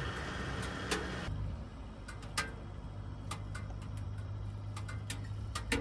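Firewood crackling in a POMOLY Dweller Max 2.0 wood stove, with scattered sharp pops at uneven intervals. A low steady hum sits under it from about a second in.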